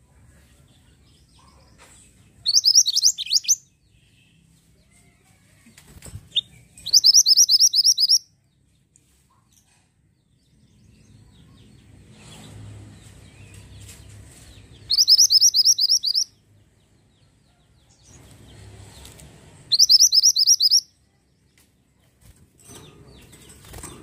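Minivet (mantenan) singing: four loud bursts of rapid high trills, each about a second long, several seconds apart. There is a brief flutter of wings near the end.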